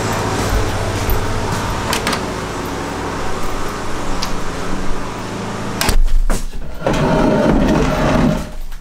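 A steady background rumble with a low hum, then a sharp click followed by a wooden chair scraping and creaking as it is pulled out and sat in.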